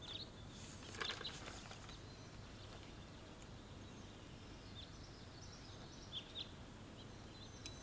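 Faint ambient background with a steady low hiss and a few short, high bird chirps in the second half.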